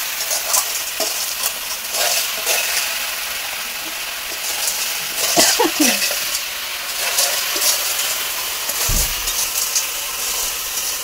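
Snails frying in oil in a metal kadhai over a wood fire, sizzling steadily, with scrapes and clicks of stirring. A low thud comes about nine seconds in.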